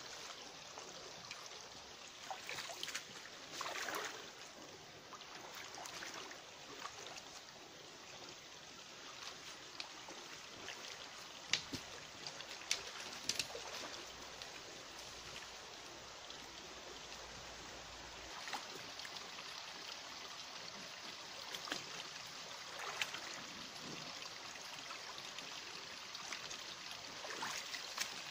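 A shallow, rocky forest stream running steadily, with irregular splashing and sloshing as someone wades through it in boots.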